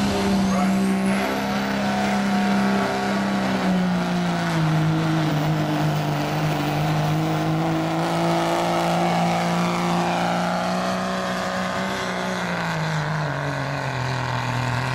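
Dodge Ram diesel pickup pulling a weight-transfer sled at full throttle, its engine held at high revs under heavy load. The engine note rises at the start, holds steady and drops near the end as the truck slows.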